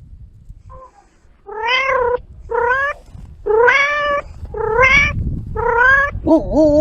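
A domestic cat meowing five times, about once a second, each meow short and rising then falling. Near the end a lower, wavering meow begins.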